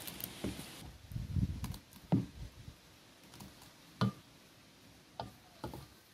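Mashed blackberry pulp squelching as it is stirred in a stainless steel bowl, then four separate sharp knocks as utensils and a pot are handled against the bowl.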